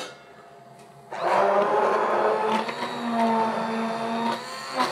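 Hand-held immersion blender switched on about a second in, whirring in a saucepan of toasted-bread milk and whipping air into it to froth it, its pitch wavering as it runs.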